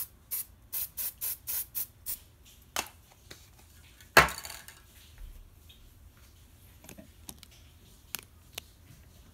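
Aerosol spray-paint can hissing in short, rapid squirts, about seven bursts in the first two seconds. About four seconds in comes one loud knock, the loudest sound, followed by a few faint clicks.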